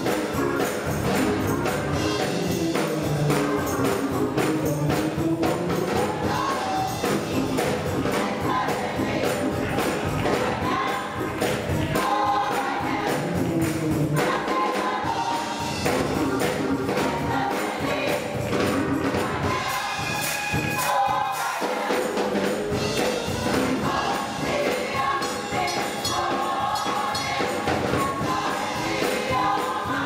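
Gospel choir singing in full voice to an electric keyboard accompaniment, played on a Yamaha Motif XF7, with a steady percussion beat running underneath.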